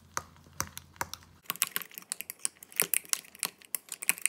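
Egg, half-and-half and cheese mixture being whisked in a container: a utensil clicks rapidly and irregularly against the sides, faster and denser from about a second and a half in.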